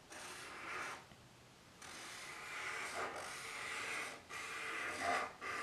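Felt-tip permanent marker drawing on paper: a faint scratchy rubbing in strokes, a short one, a pause about a second in, a long stroke of about two seconds, then shorter strokes near the end.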